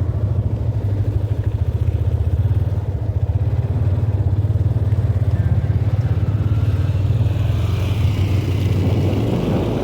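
Small boat's motor running steadily with a fast, even putter. A hiss of water or wind rises near the end.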